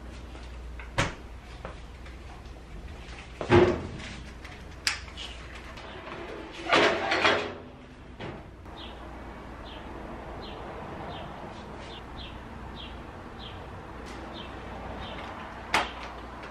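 Kitchen handling sounds: doors shutting and knocking, then a frying pan pulled out with a rattling clatter of cookware about seven seconds in. It ends with a knock as the pan is set down on the stove.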